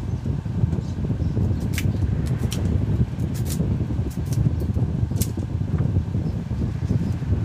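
Steady low rumble, with a few sharp cracks and crackles of dry bamboo as the outer skin of roasted khao lam tubes is cut with a knife and peeled off in strips.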